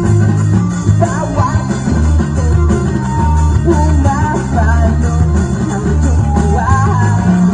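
Live rock band playing loudly: electric guitar, bass guitar and drums, with a melodic line wavering in pitch over a steady, repeating bass pattern.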